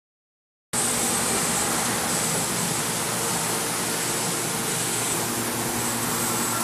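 Steady fan-like rushing noise with a faint hum, the room noise of a garage workshop, starting after a brief silence at the very beginning.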